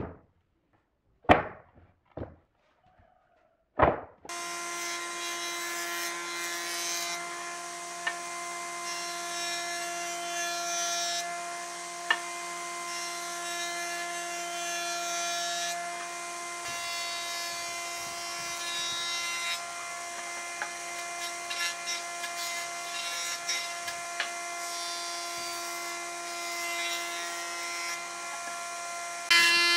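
A few sharp knocks of a wooden plank handled on a workbench. Then, about four seconds in, a combination jointer-planer runs with a steady whine and hiss as a plank is edge-jointed on it, growing louder just before the end.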